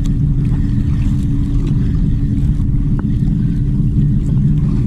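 A small outrigger fishing boat's engine running steadily, a loud even hum that holds one pitch.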